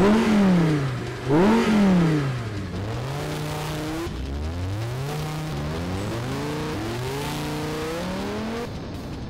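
2014 Audi R8 V10 Plus's V10 engine revving up and falling back twice, then accelerating hard through several upshifts: the pitch climbs and drops sharply at each gear change. The engine sound fades out shortly before the end.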